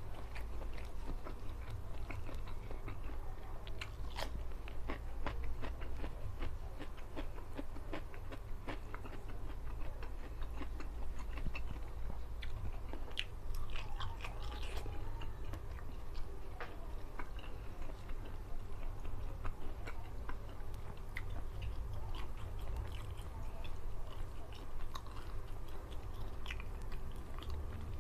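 Close-miked chewing and wet mouth clicks of a man eating rice and mackerel tuna by hand, with many short clicks and smacks over a steady low hum.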